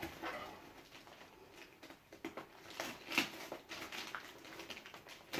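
Faint scattered light taps, clicks and rustles of something being handled, with a sharper knock about three seconds in.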